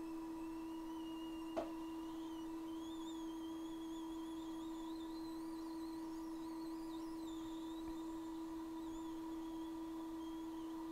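Steady electrical hum with a fainter high whine that wavers and slowly drifts upward, and a single small click about one and a half seconds in.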